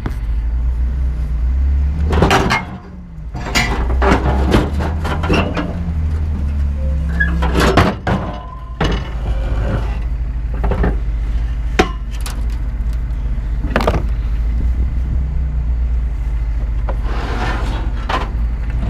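Scrap steel being untied and unloaded from a truck: irregular metal clanks and knocks as pieces are handled and dropped, over a steady low rumble.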